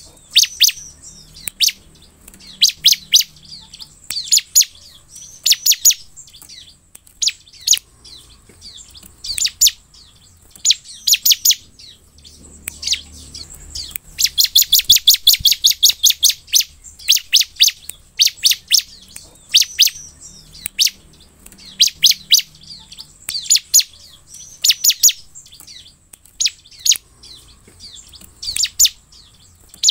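Bar-winged prinia (ciblek) calling: short bursts of sharp, high chirps repeated every second or two, with a fast, loud run of rapid notes about halfway through.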